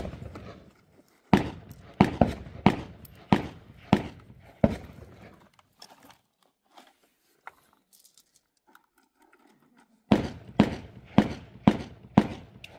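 Semi-automatic shotgun fired in rapid strings, each shot with a short echoing tail: one shot at the very start, seven quick shots about half a second apart, a pause of about five seconds, then five more shots in quick succession.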